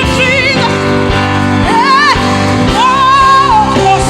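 Live gospel worship music: a woman's voice sings held, wavering notes with vibrato over a steady band accompaniment.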